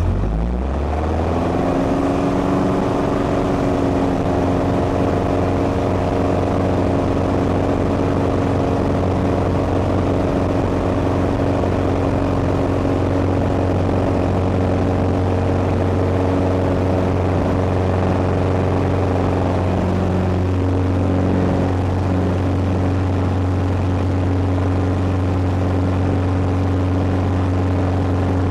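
Piper Arrow's four-cylinder piston engine and propeller heard from inside the cockpit, coming up to full takeoff power with the pitch rising over the first second or so, then a steady drone through the takeoff roll and lift-off.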